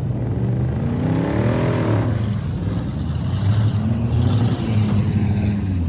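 Motor vehicle engines running, one revving up and easing back down about a second in, then steady engine noise.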